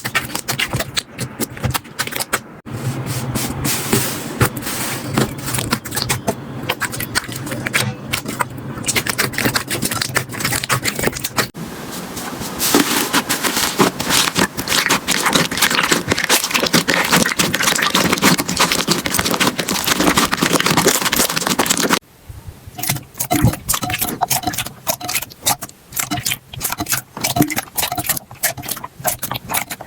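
Slime being squished and poked by hand: dense, continuous crackling and popping clicks. The sound changes abruptly three times as one slime clip gives way to the next, and the last stretch has sparser, separate pops.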